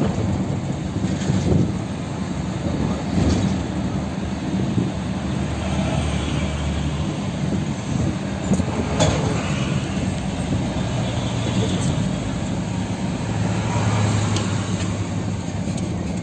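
UD Quester truck's diesel engine running under way, heard from inside the cab as a steady low hum mixed with road and tyre noise, with a few faint clicks and rattles.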